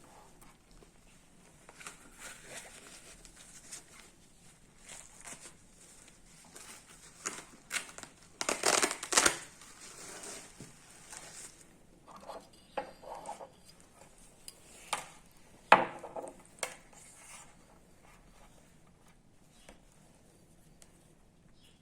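Blood pressure cuff and sphygmomanometer being handled and fitted: scattered rustling, crinkling and small clicks, loudest in a burst about nine seconds in and a sharp one near sixteen seconds.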